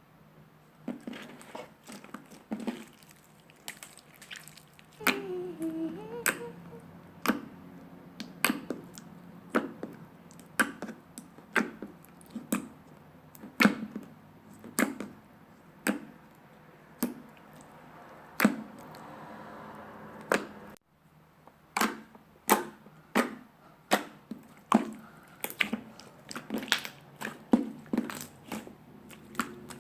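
Slime being pressed and worked by hand, giving sharp clicking pops about once a second.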